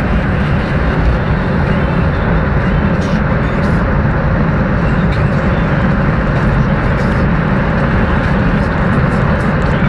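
Mercedes-Benz G500's V8 engine pulling under hard acceleration at high speed, heard from inside the cabin. A steady, loud drone mixed with heavy wind and road noise.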